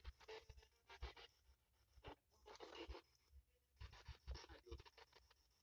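Near silence broken by faint, irregular scratching and crackling noises.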